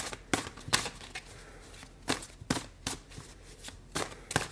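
A deck of tarot cards being shuffled and handled: irregular sharp card snaps and slaps, some close together, others a second or more apart.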